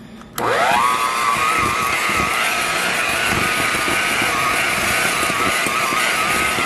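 Electric hand mixer switched on about half a second in, its whine rising quickly as the motor spins up, then running steadily at one speed as its beaters work eggs into creamed butter and sugar in a glass bowl.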